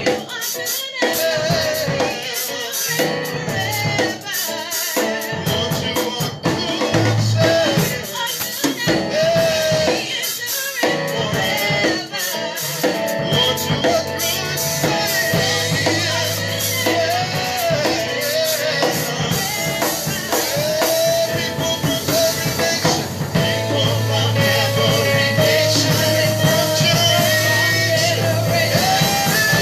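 Worship music with a drum kit and a singing voice carrying a wavering melody over sustained low notes.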